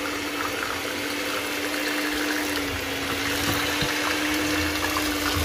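Electric hand mixer running steadily at one constant pitch, its beaters whisking a runny cottage-cheese and milk batter in a bowl.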